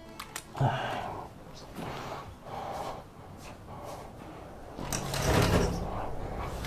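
A sliding glass window being slid along its track, the loudest stretch about five seconds in, after a few brief handling and movement noises.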